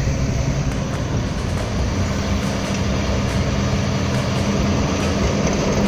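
Hidromek wheeled excavator's diesel engine running steadily while the machine works its boom and bucket.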